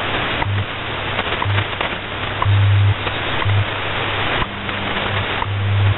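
WWV time-signal broadcast heard through a shortwave receiver: a steady hiss of static with a faint tick each second and a low hum that switches on and off in short and longer pulses, WWV's 100 Hz time code. The recording cuts off suddenly near the end.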